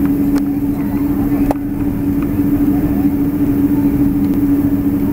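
Cabin noise inside a Boeing 777-200 taxiing with its twin jet engines at low power: a steady drone with a strong, even hum and low rumble. Two light clicks come in the first two seconds.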